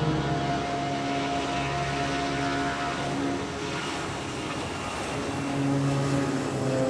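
Jet noise from an Airbus A320-family airliner rolling down the runway, steady throughout, under background music with sustained held chords.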